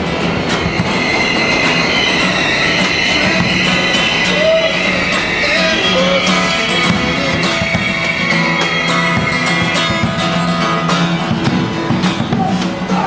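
Live guitar music played in a subway station. A high, wavering screech of subway train wheels runs over it from about a second in and stops near the end.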